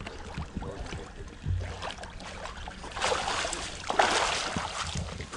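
Lake water splashing and streaming off a landing net as it is hauled out of the shallows with a fish in it, with wading steps in the water; two louder rushes of water about three and four seconds in.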